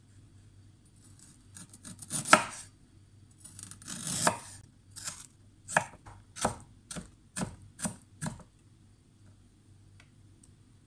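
A hollow-edge kitchen knife chops peeled ginger on a bamboo cutting board. First come a couple of longer slicing strokes, then about seven separate chops at roughly two a second, and then the chopping stops.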